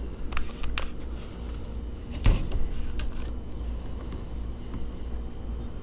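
Handling noises: scattered light clicks and short crinkly rustles, with one sharper knock about two seconds in, over a low steady hum.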